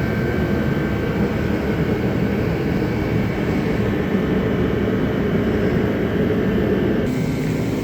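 Steady machine drone with a low hum from paint-spraying equipment running while clear coat goes on in a homemade downdraft paint booth.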